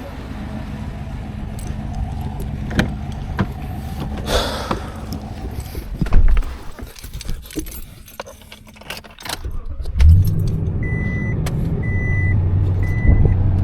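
Keys jingling and scattered clicks as someone gets into a pickup truck, with a loud thump about six seconds in like a door shutting. About ten seconds in the truck's engine starts and then runs steadily, while a high electronic chime beeps in short repeated pulses.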